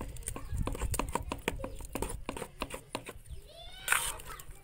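A steel spoon stirring thick batter in a steel bowl, with quick clicks and scrapes of spoon on metal. Near the end comes a short animal call falling in pitch, followed by a loud scrape.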